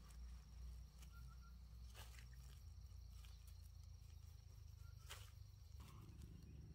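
Near silence: a faint low rumble and a thin high tone, with two soft clicks about two and five seconds in.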